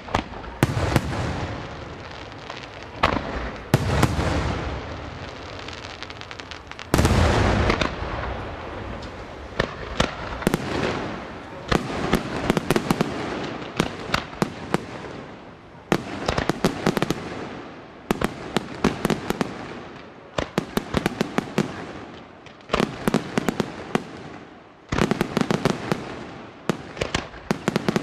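Fireworks display: aerial shells bursting with heavy booms, the loudest about seven seconds in, followed by repeated volleys of rapid sharp pops and crackling.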